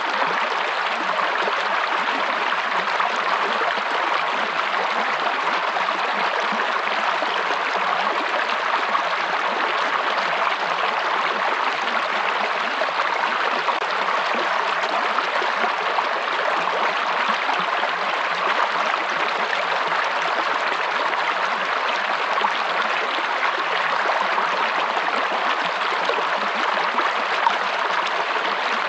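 Running water of a stream flowing steadily, a constant rushing babble without breaks.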